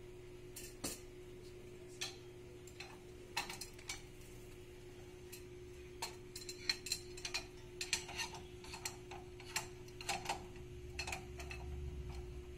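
Irregular light metallic clicks and taps as the tail clamp of a drum-type CTP platesetter is handled and fitted onto the drum. The clicks come more often about halfway through, over a steady machine hum.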